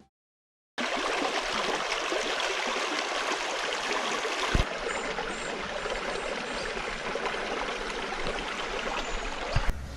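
Stream water flowing steadily. A brief thump and a slight change in the sound come about four and a half seconds in.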